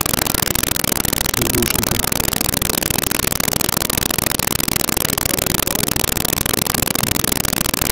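Dense, steady din of a large outdoor crowd, heard through a poor-quality, noisy recording, with a voice calling out briefly about two seconds in.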